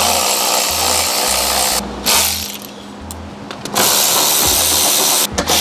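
Handheld power driver running in several bursts, backing out the screws that hold a front fender liner, with short pauses about two seconds in and again near the end. Background music plays underneath.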